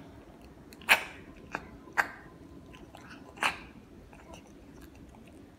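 Cat chewing and crunching on fish. There are four loud, sharp crunches in the first three and a half seconds, with softer chewing clicks between them.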